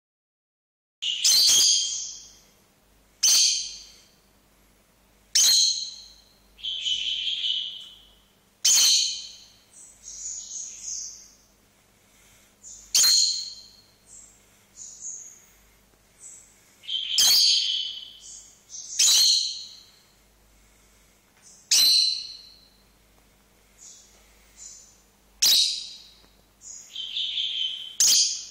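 Lovebirds calling excitedly: about ten loud, sharp, high-pitched calls a few seconds apart, with quieter chirps in between.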